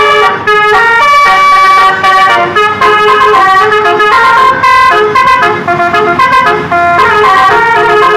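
Bus 'telolet' musical air horn of the Basuri type playing a loud, quick tune: several horn tones sound together and step from note to note every fraction of a second, with a few short breaks.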